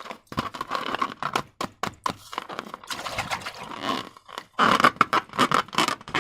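Slime being worked: rapid, irregular sticky clicks and crackles, louder for a stretch near the end.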